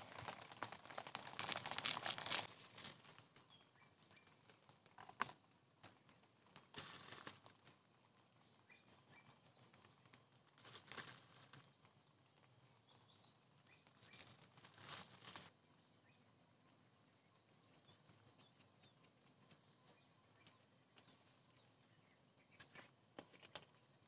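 Quiet rainforest ambience with intermittent spells of rustling and crackling, loudest in the first few seconds. A small bird twice gives a quick run of about five very high notes, with a few faint chirps between.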